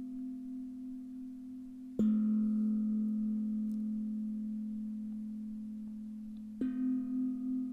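Singing bowls ringing. A lower-pitched bowl is struck about two seconds in and rings on, fading slowly. Near the end a slightly higher bowl is struck, and its tone wavers slowly as it rings.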